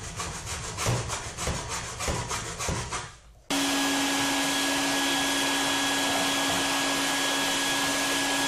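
Hacksaw cutting 3 mm aluminium bar stock in a plastic miter box, a run of quick back-and-forth strokes. About three and a half seconds in, the sawing stops and a vacuum cleaner comes on abruptly, then runs loud and steady with a constant hum and whine.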